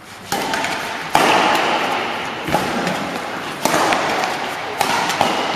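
Badminton rally: five sharp racket hits on the shuttlecock, about one a second, echoing in a large sports hall.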